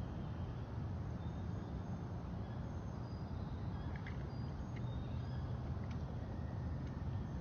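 Steady low rumble, with a few faint, short high-pitched bird calls and soft clicks over it.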